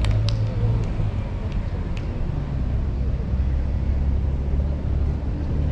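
Steady low outdoor rumble on the microphone, with a few sharp knocks at the start and about two seconds in, which are typical of a futsal ball being kicked, and faint distant shouts of players.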